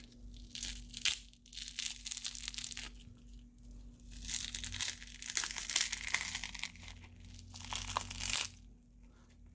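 Crackling, tearing noise of a cracked phone screen being pried and peeled off its frame, the adhesive and broken glass giving way in irregular bursts. A longer stretch runs through the middle and stops about a second before the end.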